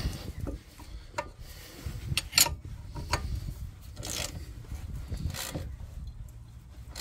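A ratchet and combination spanner nipping up a bolt on a van's front suspension strut: short metallic clicks and knocks, the loudest about two and a half seconds in, then two longer rasping stretches of ratcheting about four and five seconds in.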